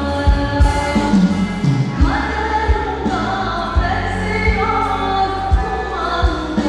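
Live band music: a woman singing into a handheld microphone over bass and a drum beat.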